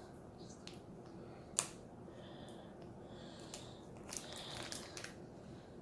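Faint crinkling and scattered sharp clicks of a sealed foil Pokémon card booster pack being handled and worked at to tear it open, with one louder click about a second and a half in.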